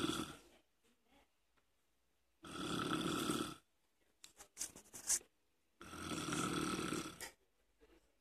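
A person snoring: long, rasping breaths about every three and a half seconds, with a few faint clicks between two of them.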